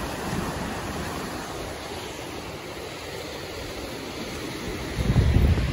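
Surf washing on the shore, a steady rushing noise. About five seconds in, wind starts buffeting the microphone with a louder low rumble.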